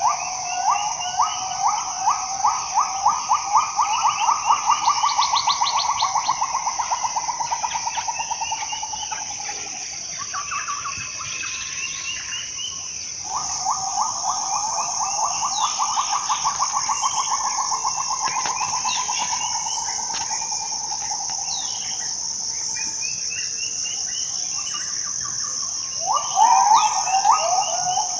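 Tropical rainforest ambience: a steady high-pitched insect drone, over which an animal call of rapid repeated notes rises and then slowly falls in pitch for several seconds. The call comes twice, with a short loud burst of it again near the end.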